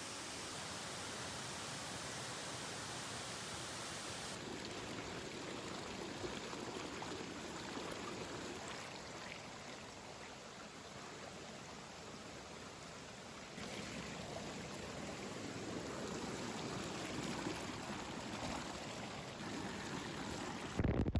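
Steady rush of water from a waterfall and its stream, with the texture of the sound changing a couple of times. It ends in a brief louder burst near the end.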